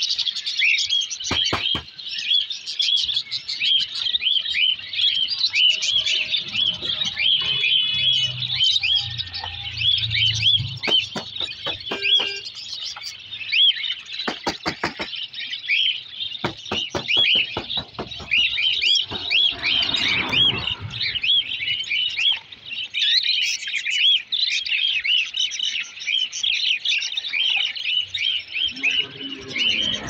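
Many caged pet birds chirping at once: a dense, steady chatter of short, high calls, with scattered sharp clicks.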